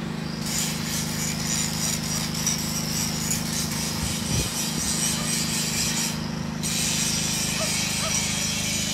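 Steady engine hum at an unchanging pitch, with a high hiss over it that cuts out briefly about six seconds in.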